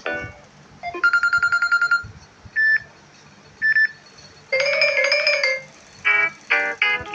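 Samsung Galaxy J7 Pro ringtone tones playing. A fast trilling tone lasts about a second, then come two short beeps about a second apart, a buzzy chord lasting about a second, and near the end a quick run of separate notes.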